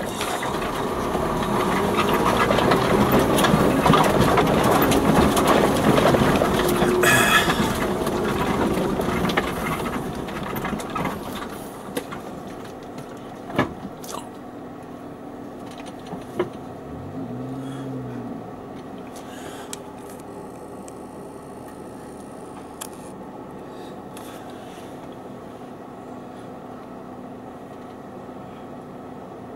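Off-road 4x4 driving along a grassy track, its engine and tyres giving a loud, even noise that fades after about ten seconds as the vehicle comes to a halt. It then idles quietly, with a few clicks and a short low hum about two-thirds of the way in.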